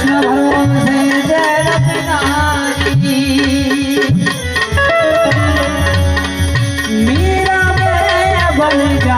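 Harmonium playing a melody in raag Bhairavi in held, stepping notes, with tabla strokes keeping the rhythm underneath.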